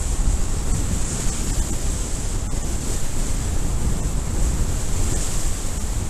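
Loud, steady wind noise on the microphone of a camera carried by a speedflying pilot in flight: airflow over the mic, a deep rumble with a hiss above it.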